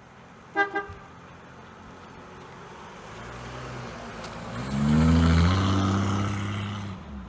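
Two short pitched beeps, then a car engine running up: its pitch rises, it is loudest about two-thirds of the way in, and it fades toward the end, as a car accelerating away or past.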